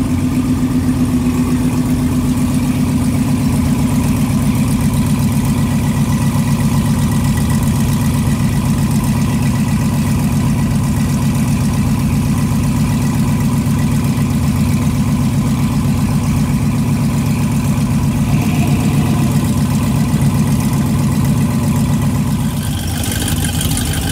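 A car engine idling steadily close by, with an even, rapid pulsing from the exhaust. A hiss joins near the end.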